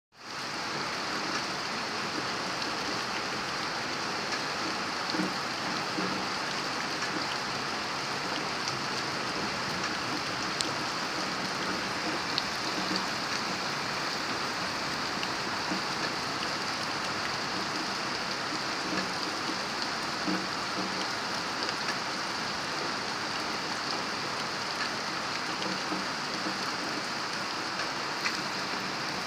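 Steady rain falling, an even hiss with scattered individual drops ticking on surfaces; it fades in over the first half second.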